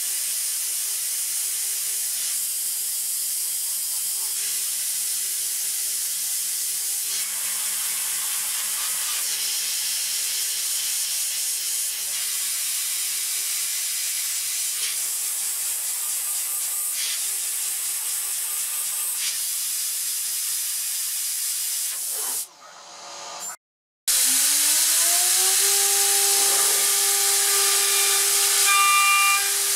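Light CNC router milling aluminium with a steady loud hiss of mist coolant spray over the cut. About 23 s in the sound cuts out briefly. Then the spindle spins up with a rising whine and settles into a steady high whine at 24000 RPM as the 6 mm 3-flute end mill begins face-milling the aluminium near the end.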